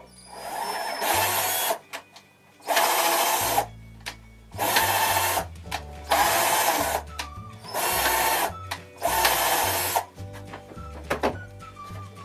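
Cordless drill running in about six bursts of roughly a second each, drilling into the machine's frame, with short pauses between. Background music plays underneath.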